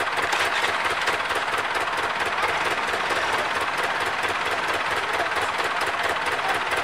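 Ford 6640 tractor's diesel engine running steadily, with an even, rapid beat of about five pulses a second.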